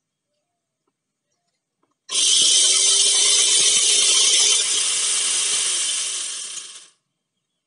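Electric angle grinder fitted with a chainsaw bar and chain attachment, switched on about two seconds in and running free at full speed, loud and high-pitched, then switched off and winding down to a stop near the end. The chain is running too loose on the bar, by the operator's judgement.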